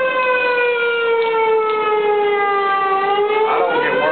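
Whelen outdoor tornado warning siren wailing, its steady tone slowly falling in pitch and then rising again near the end, sounding a tornado warning.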